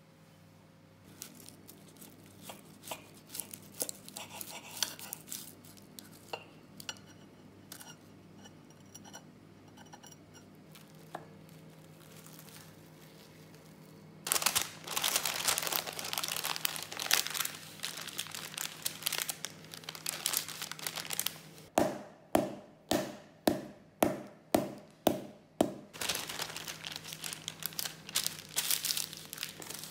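Light scattered clicks, then from about halfway loud crinkling and rustling of a sheet of baking paper being folded around a block of pastry butter, with a run of about ten sharp, evenly spaced taps partway through.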